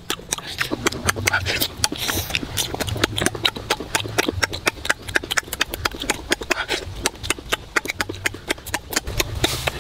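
Chewing and lip-smacking of someone eating crispy fried chicken, a fast uneven run of wet smacks and crunches.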